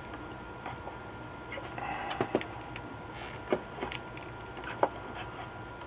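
Light clicks and taps of a soldering iron and fingers against a circuit board while a capacitor is desoldered, with a brief faint crackle about two seconds in and three sharper clicks spread through the middle.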